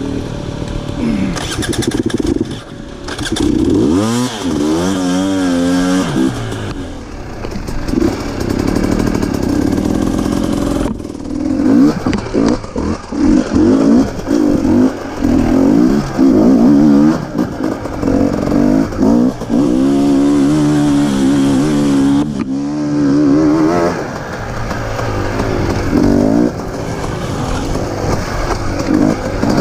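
Dirt bike engines revving hard, their pitch rising and falling again and again with throttle changes as the bikes are worked over rough off-road ground.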